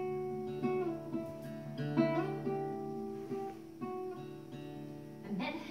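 Acoustic guitar played solo, with plucked chords and notes ringing out and a new note or chord picked about every half second.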